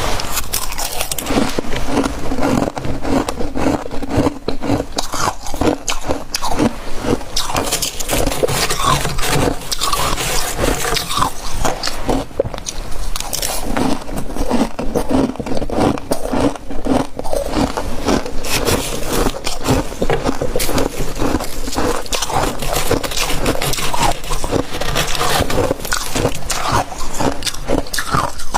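Close-up crunching and chewing of a mouthful of soft freezer frost, with dense, continuous crackling as the frost is bitten and compressed.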